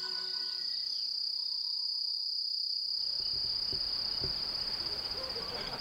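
Insects chirring in one steady, high-pitched drone, with the last notes of music dying away in the first second. A few seconds in, outdoor background noise rises beneath it, and near the end the drone turns into a fast pulsing trill.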